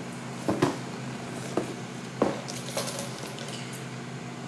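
A package being unboxed by hand: scattered small knocks and clicks of cardboard and the items inside being handled, with light rustling, over a low steady hum.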